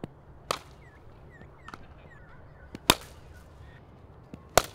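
Sharp cracks of a cricket ball off a repaired cricket bat, one that was broken and glued back together, being struck hard in a test of whether the repair holds. There are several hits, the loudest about three seconds in and another just before the end.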